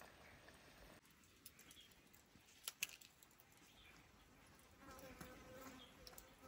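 Near silence, with a couple of faint clicks about three seconds in and a faint, steady buzz that starts about five seconds in.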